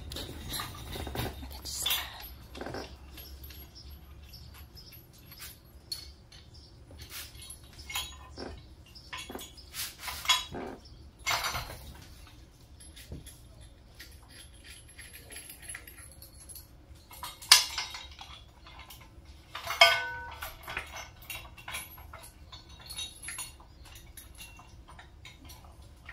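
Hand tools and bolts clinking and knocking against metal while an engine is fastened to an engine stand's mounting plate: scattered light clicks and taps, with two louder ringing metallic clanks about two-thirds of the way through.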